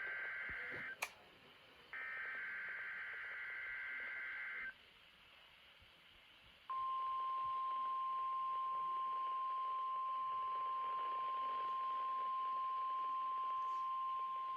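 NOAA Weather Radio test broadcast: the end of the SAME digital header, two bursts of warbling data tones (the first ending about a second in, the next lasting almost three seconds), then a short gap of receiver hiss. The steady, single-pitch 1050 Hz warning alarm tone starts about seven seconds in.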